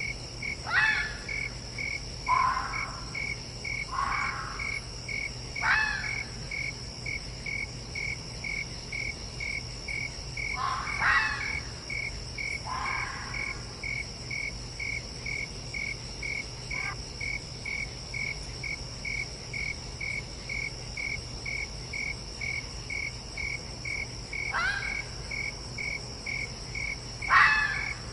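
A fox calling in about ten short, sharp barks or yelps at irregular intervals, over crickets chirping steadily at about two chirps a second and a continuous high insect drone.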